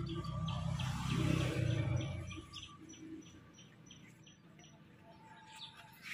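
A low rumble with a steady hum for about the first two seconds, then birds chirping in short notes repeated about three times a second.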